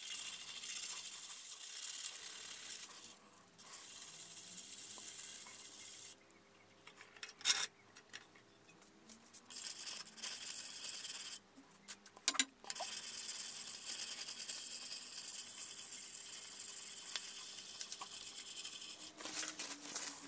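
Fine-grit sandpaper on a wooden sanding stick rubbed by hand along a hardened bearing-steel blade, a dry hissing scrape. It comes in long stretches broken by short pauses with a few light clicks.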